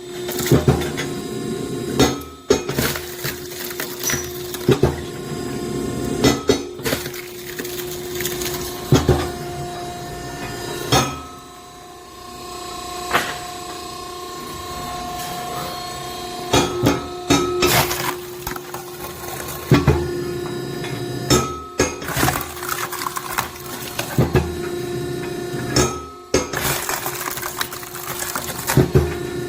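Hydraulic log splitter running with a steady pump hum while it splits green oak rounds with a cross-shaped wedge, punctuated by repeated sharp cracks and knocks of the wood.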